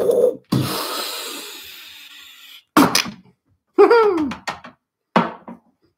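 A man making growling dinosaur noises while playing with toy dinosaurs. About half a second in there is a sudden crash that fades away over about two seconds. Three short vocal noises with falling pitch follow.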